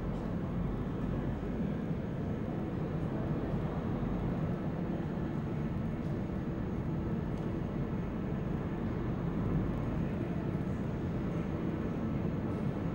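Steady low rumble of a railway locomotive running.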